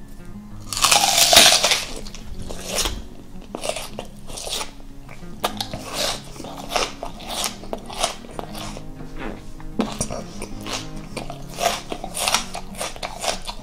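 A loud, crunchy bite into a raw red onion half about a second in, followed by repeated crunchy chewing of the raw onion.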